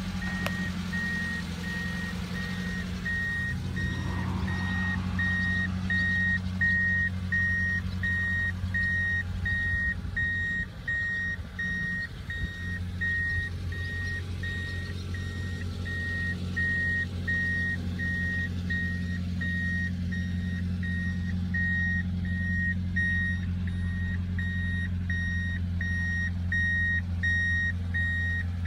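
Subaru Sambar kei truck idling, a steady low hum, while a high electronic warning beep in the cab sounds over and over, about one and a half beeps a second.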